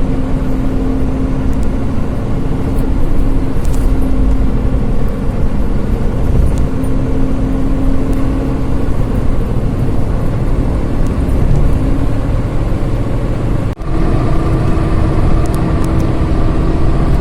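Road vehicle running: a steady low rumble with a held engine tone. About 14 s in the sound drops out for an instant, and afterwards the tone is slightly higher.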